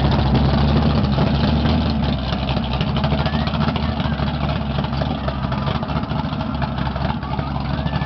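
Dodge Challenger drag car's engine idling with a steady low rumble as the car rolls slowly away, a little quieter after about two seconds.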